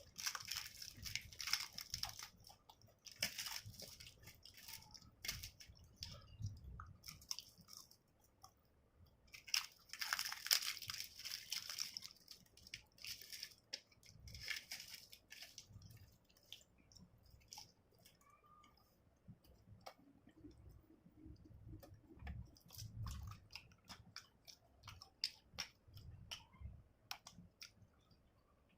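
Close-up eating sounds: a person biting and chewing food, with bursts of crunching near the start, around the middle and a little after, and softer wet chewing and small clicks in between and in the second half.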